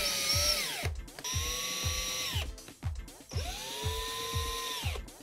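Cordless drill-driver driving screws through a clip-on cabinet hinge into a wardrobe door: three runs of motor whine, each climbing to a steady pitch and winding down at the end. Background music with a steady beat underneath.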